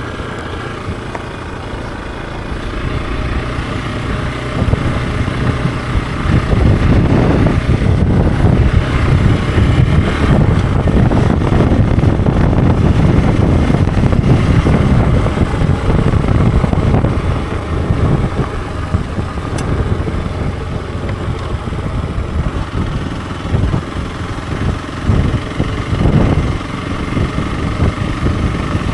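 Hero XPulse 200 4V motorcycle's single-cylinder engine running on the move. It is steadier and quieter at first, gets louder from about five seconds in as the bike speeds up, and eases off again in the last third.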